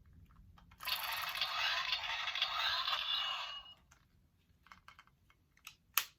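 Hard plastic scraping and rustling for about three seconds as a plastic toy is handled and worked, followed by a few small plastic clicks near the end.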